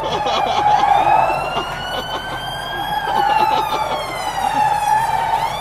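Tyres of a large SUV screeching as it spins donuts on asphalt: a continuous squeal whose pitch slides down, then back up about halfway through.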